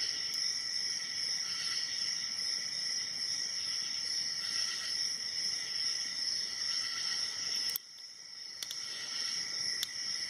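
A steady high-pitched whine or hiss that dips suddenly about three-quarters of the way through, with a few faint sharp clicks near the end.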